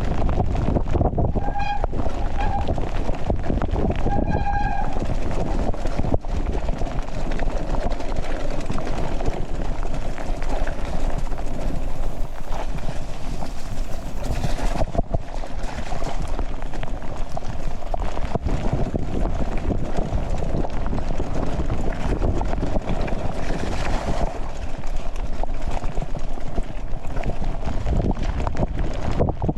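Mountain bike riding in heavy rain, heard on a GoPro: a steady rush of wind on the microphone mixed with tyre and trail noise. Two short high squeals sound about a second and a half and four and a half seconds in.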